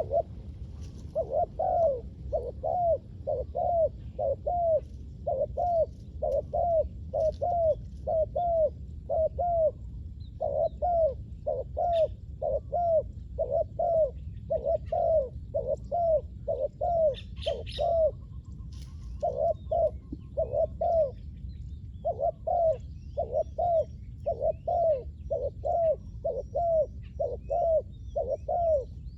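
Spotted dove cooing in a long, rapid run of short repeated coos, about two to three a second, pausing briefly twice in the second half. Faint chirps from other small birds sound now and then above it.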